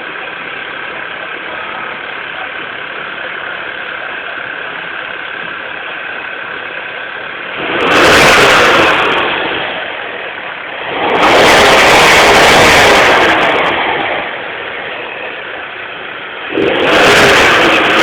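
Fiat Tipo's engine idling steadily, then revved three times, about eight, eleven and sixteen seconds in. Each rev is held for a second or two and then drops back to idle; the last is still held at the end.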